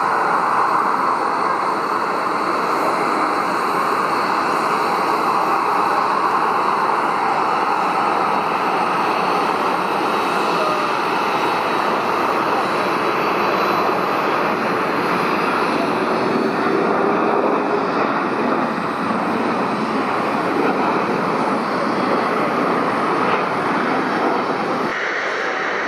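Jet airliner landing, its engines a loud, steady rush of noise with a faint high whine above it.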